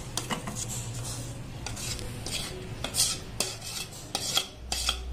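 Metal utensil scraping thick cake batter out of a steel vessel into an aluminium cake tin, with irregular scrapes and sharp metal-on-metal clinks.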